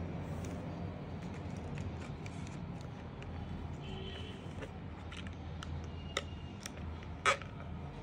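African grey parrot's beak clicking and gnawing on the cap of a plastic water bottle: scattered small sharp clicks, with one louder crack near the end. A steady low hum runs underneath.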